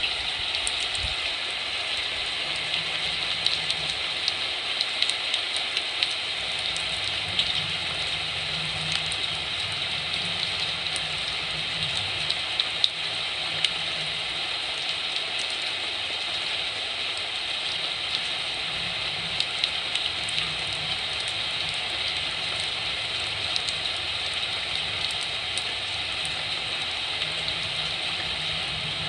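Heavy typhoon rain falling steadily, a dense even hiss with many scattered drops ticking and splashing on nearby surfaces, over a faint low rumble that swells and fades.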